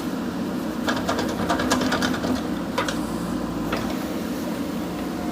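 JCB 3DX backhoe loader's diesel engine running steadily, with a rapid clatter of sharp metallic clicks and knocks from about one to three seconds in.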